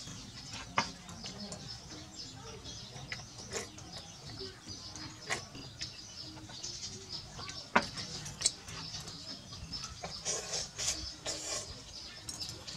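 Small birds chirping steadily in the background, with a few sharp clinks of metal cutlery against ceramic bowls.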